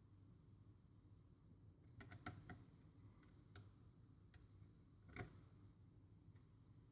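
Near silence with a few faint, short clicks and taps of small hard parts being handled: a quick cluster about two seconds in, a few single ticks after, and a sharper click about five seconds in.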